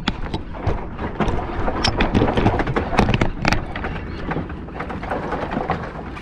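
Low rumble of wind buffeting the microphone, with irregular sharp clicks and knocks throughout.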